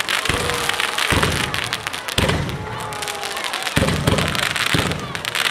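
Set-piece fireworks fountains spraying sparks with a constant hissing crackle, broken by several low booms about a second apart.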